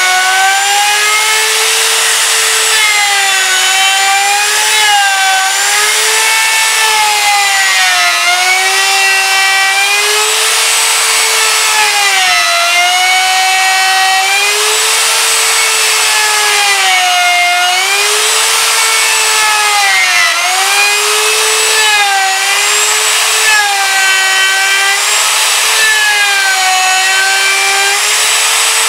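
Handheld router with a top-bearing pattern bit running continuously as it follows a plywood template to cut a square recess in maple. Its high whine sags in pitch each time the bit bites into the wood and climbs back as the load eases, over and over.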